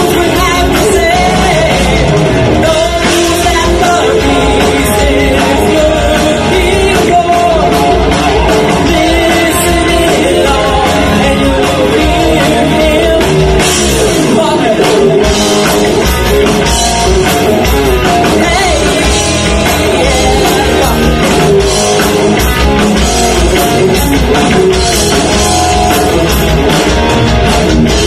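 Rock band playing: a singer's voice over electric guitar, bass guitar and a drum kit.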